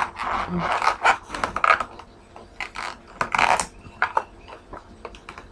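Latex balloon being handled and twisted in the hands: rubbing and scraping noises, loudest in the first two seconds and again about three and a half seconds in, with scattered small clicks.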